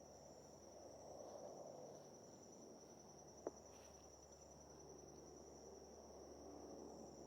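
Faint, steady high-pitched insect trill, unbroken throughout, with a single soft click about three and a half seconds in.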